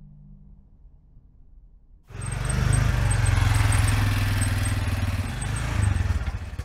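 Auto-rickshaw engine running, coming in suddenly about two seconds in after a faint low hum, then settling into an even putter near the end.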